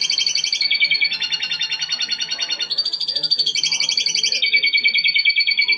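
Domestic canary singing a continuous rolling song: fast trilled phrases of rapidly repeated notes, the pitch jumping to a new level every half second to a second.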